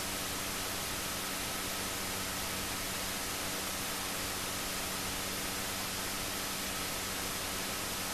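Steady, even static hiss with faint constant hum tones under it, unchanging throughout.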